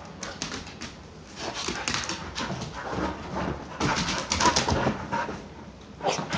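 Dog whining and panting in excited, irregular bursts.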